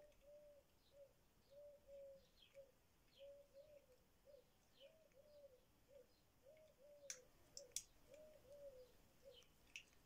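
Faint cooing of a dove, a phrase of two longer notes and a short one repeated about every one and a half seconds. Small birds chirp in short descending notes, and there are three sharp clicks: two about seven seconds in and one near the end.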